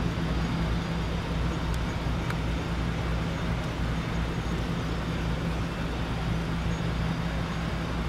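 A steady, low engine hum that holds one pitch throughout, with no revving.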